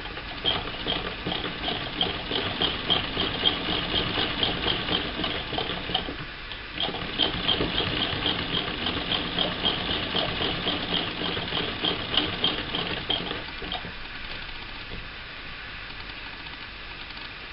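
1937 Frister & Rossmann transverse-shuttle sewing machine stitching patchwork, a fast even run of clicks from the needle and shuttle mechanism. It pauses briefly about six seconds in, runs again, then stops about three-quarters of the way through.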